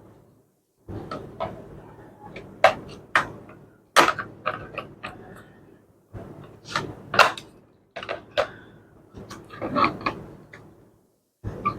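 Irregular plastic and metal clicks, knocks and scrapes as a 2.5-inch SATA SSD is handled and pushed to slide it into a laptop's hard-drive bay. It will not seat: the SSD is hard to fit in.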